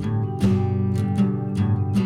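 Background music: acoustic guitar plucked and strummed in a gentle, regular rhythm.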